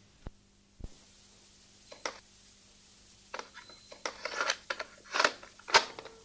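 Plastic clicks and clatter of a cassette being handled and loaded into a Gradiente radio-cassette boombox: a few single sharp clicks, then a busier run of clicks and snaps from about three seconds in as the tape goes in and the cassette door is shut.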